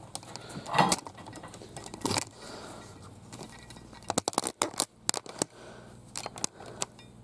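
Cardboard toy box being handled and opened, with scraping and rustling, then a quick run of sharp clicks and crackles about four to five and a half seconds in, and a few more near the end.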